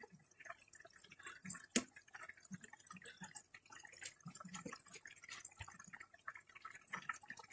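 Faint, irregular bubbling and popping from a pot of rice cooking in liquid with vegetables on a gas stove.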